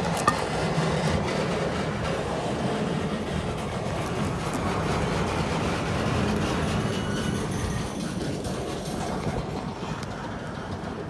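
Norfolk Southern freight train of gondola cars rolling past, a steady rumble and clickety-clack of steel wheels on the rails. A single sharp click comes just after the start, and the sound eases off a little near the end.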